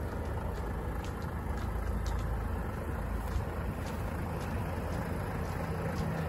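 Truck engine idling with a steady low rumble.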